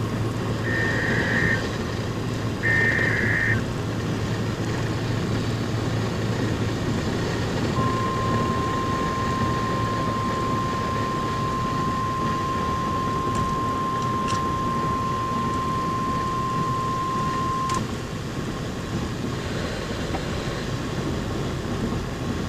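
NOAA Weather Radio receiver sounding an alert: two short buzzy data bursts in the first few seconds, then the steady single-pitch warning alarm tone held for about ten seconds, the signal that a warning (here a tornado warning) is about to be read. Steady road and engine noise of the moving car runs underneath.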